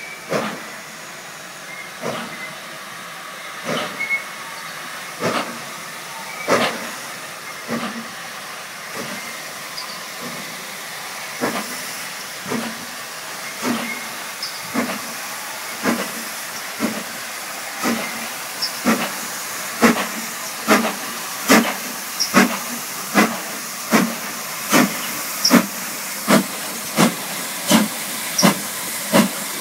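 GWR King class steam locomotive 6024 King Edward I pulling away under load: sharp exhaust chuffs, slow at first and quickening steadily as it gathers speed, over a constant hiss of steam from around the cylinders. The beats grow louder as the engine draws near.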